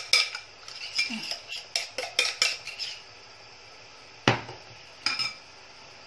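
Metal spoon clinking against a glass mixing bowl as a salad is stirred. Quick clinks for about three seconds, then a lull, then one loud knock just past four seconds in and a smaller one a second later.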